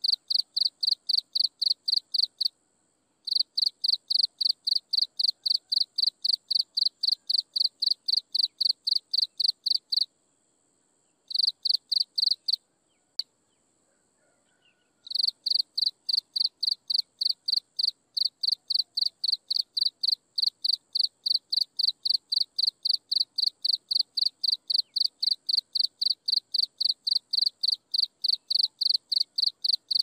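An insect chirping in a fast, even pulse, about four high-pitched chirps a second. It stops briefly about two and a half seconds in, again about ten seconds in, and for a couple of seconds around the middle. A fainter steady high whine from another insect runs underneath, and a single click sounds during the longest pause.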